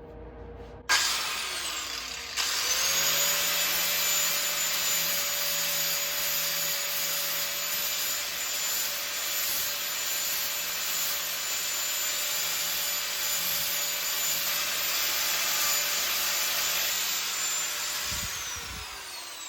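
Electric power tool switched on about a second in, its motor whine rising to a steady pitch under a rough rasping noise as it works on the old hammer. It is switched off near the end and the whine falls as it winds down.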